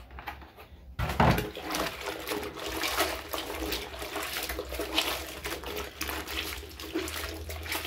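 Hands swishing and squeezing a cloth in a plastic bucket of soapy water, with repeated sloshing and splashing that starts about a second in.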